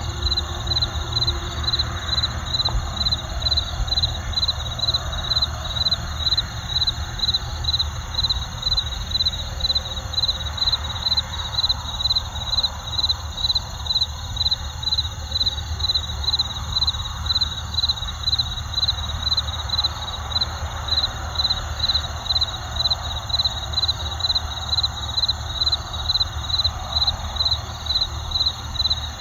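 Crickets chirping in a steady rhythm, about two chirps a second, over a constant high insect drone. A steady low rumble of road traffic and a soft forest hiss lie underneath.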